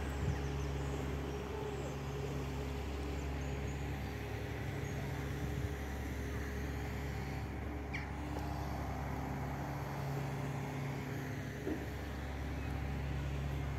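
A motor vehicle's engine running steadily at idle, a low even hum that does not change, with a few faint short high chirps over it.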